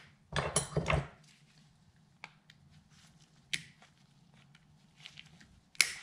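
Hands handling a plastic scuba regulator second stage and a pair of pliers: a clatter of knocks about half a second in, then scattered small clicks and a sharp snap near the end as the pliers work at the tie that holds the mouthpiece on.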